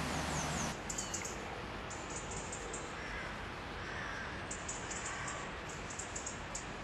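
Steady rush of flowing river water, with a few faint short calls about three to five seconds in and light ticks throughout.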